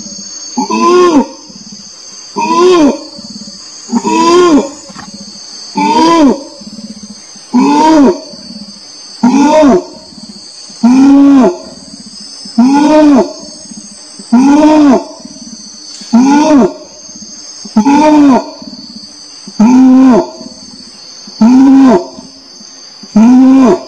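An orangutan calling over and over at a steady pace, one call about every second and three-quarters. Each call lasts about half a second, rising and then falling in pitch. A steady high insect drone runs underneath.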